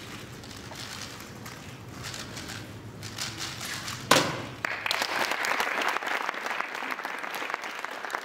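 Rapid turning of a speedcube, then a sharp slap about four seconds in as the solver's hands come down on the stackmat timer to stop it. Right after that, an audience breaks into applause.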